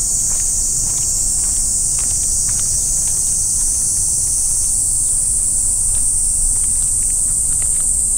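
Steady, high-pitched insect chorus that carries on unbroken, over a low rumble of wind and handling noise on the microphone.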